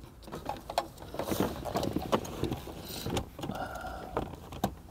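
Plastic wiring-harness connectors and cables being handled and plugged in behind a car's factory radio: scattered small clicks, taps and rustling.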